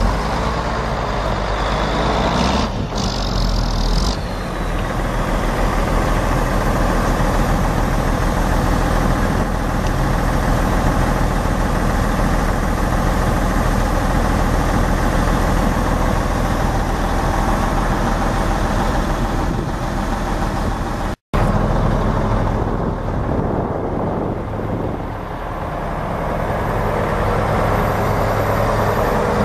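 Mack six-cylinder turbo diesel in a heavy dump truck running steadily, with a short hiss about three seconds in. The sound drops out for an instant about two-thirds of the way through.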